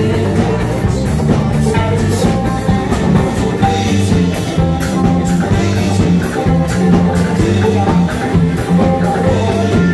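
Live band music, loud and steady: a banjo and guitars strummed over a drum kit beat, with a man singing.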